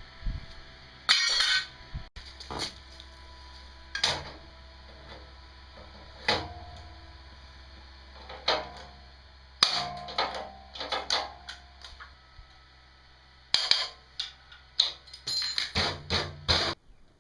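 Irregular knocks and metal clanks from parts being handled and fitted, some ringing briefly, over a low steady hum, with a quick run of clanks near the end.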